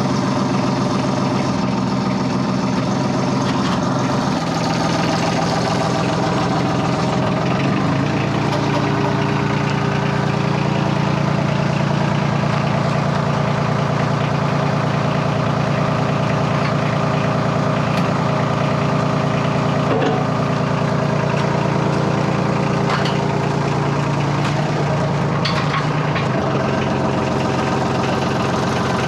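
Boatyard boat transporter's engine running steadily. It speeds up about eight seconds in, holds a higher pitch, and drops back near the end, as it works to move a boat into place.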